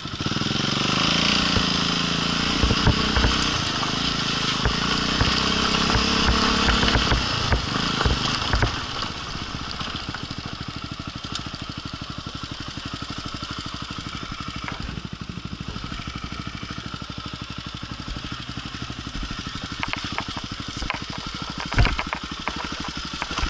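Dirt bike engine running as the bike is ridden, louder for the first eight seconds or so, then quieter and steady with an even pulsing beat of low revs. A few sharp knocks come near the end.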